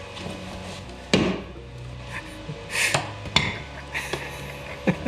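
A few sharp knocks and clanks of tools on metal, spaced a second or two apart, with short hissy bursts between them.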